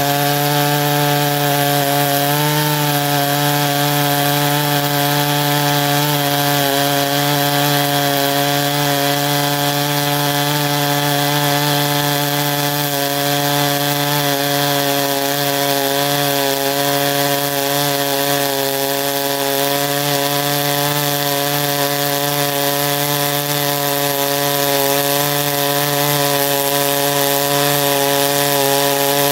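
Clone chainsaw with a 36-inch bar and full-chisel chain held at full throttle, cutting steadily through a green hardwood log. The engine note stays steady under load the whole time.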